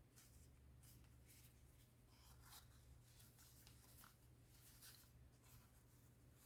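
Near silence: faint, scattered rustles and scratches of paper being handled, over a low steady hum.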